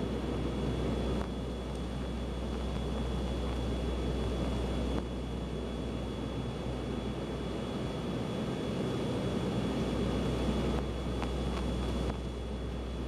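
Steady cabin drone of an ATR 72-200 turboprop airliner in flight, heard from a window seat: the low hum of its Pratt & Whitney PW124B turboprops and propellers mixed with airflow noise, with a thin steady high whine above it.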